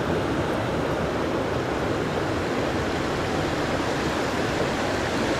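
Steady rushing of a small rocky stream flowing over riffles and a small cascade.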